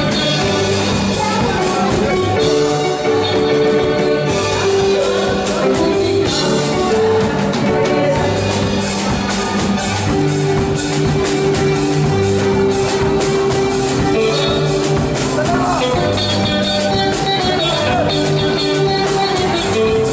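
Live band playing upbeat dance music on keyboard and drum kit, with a steady beat.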